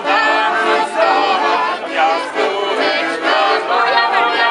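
Accordion playing a folk-style tune, with a group of people singing along.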